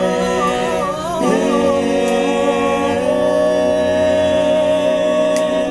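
Male vocal group singing gospel a cappella in harmony: a short wavering run in the first second, then a long sustained chord that breaks off at the very end.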